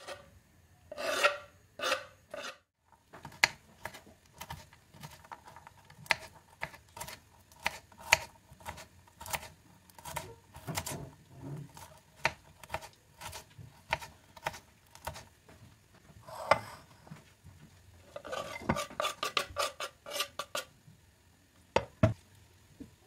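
A kitchen knife chopping walnuts on a wooden cutting board, the blade tapping the board about twice a second. Near the end comes a quicker run of scraping strokes.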